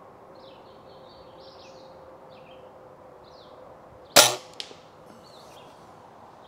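Daisy Powerline 1101S spring-piston air rifle firing a single shot about four seconds in: one sharp crack with a short ring, followed by a fainter click half a second later. Small birds chirp faintly throughout.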